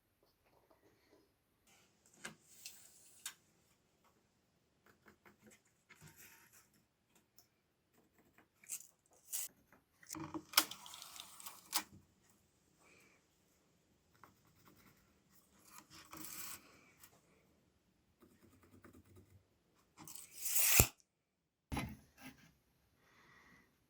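Intermittent hand-handling noises of workshop work: soft rubbing, scraping and light clicks, with a few louder, longer scrapes about ten seconds in, around sixteen seconds and near the end.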